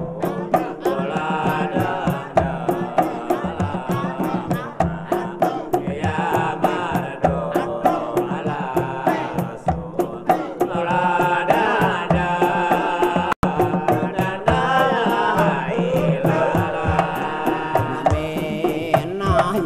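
Sundanese traditional music: male voices singing a chant-like tembang over frame drums beating a steady rhythm, about two to three strokes a second. The sound cuts out for a split second a little past the middle.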